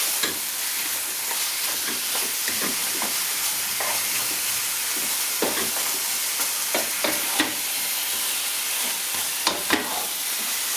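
Marinated boneless mutton sizzling as it is stir-fried in a little oil over a high flame, with no water added. A utensil stirs and scrapes against the pan every so often.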